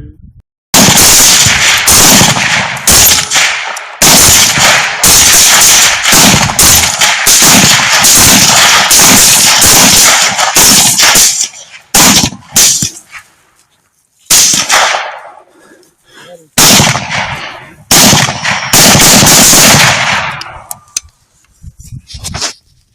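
Several rifles firing at once in rapid succession: a dense, continuous volley for about the first eleven seconds, then scattered single shots and short strings of shots until near the end.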